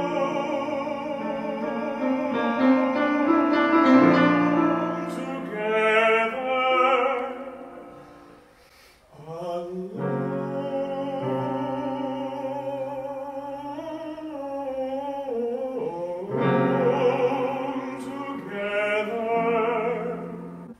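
Operatic singing with grand piano accompaniment: a soprano sings a phrase with wide vibrato, then after a brief pause about nine seconds in, a male voice, a baritone, takes up further phrases over the piano.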